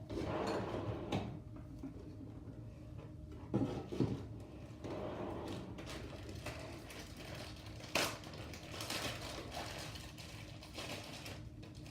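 Fluffy glitter slime, made with shaving cream, being squished and stretched by hand: irregular soft crackles and squelches, with sharper snaps twice about a third of the way in and once about two-thirds through.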